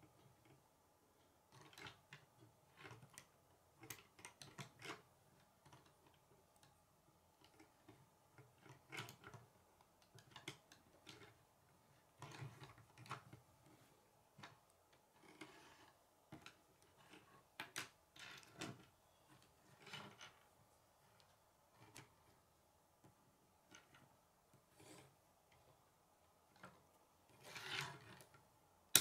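Plastic K'nex pieces clicking and snapping together as a model is assembled by hand, with irregular light clicks and taps and some handling rub; the loudest cluster of clicks comes near the end.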